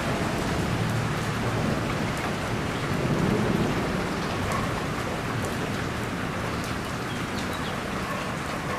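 Steady heavy rain falling, with scattered individual drops ticking, and a low rumble of distant thunder swelling about three seconds in.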